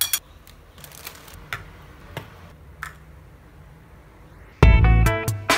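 A few light clicks and clinks of a metal fork and spoon against a ceramic bowl. Near the end, loud background music with plucked guitar and a beat starts.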